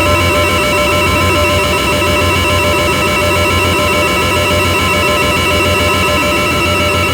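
Lyra-8 analogue drone synthesizer playing a loud, steady dark drone. Several high tones are held without change over a low hum, with a gritty, flickering noise between them.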